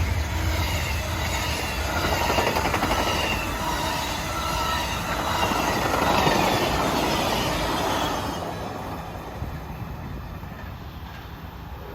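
Amtrak passenger train passing close by, its wheels running loud on the rails with short high squeals. The noise fades away after about eight seconds as the train recedes.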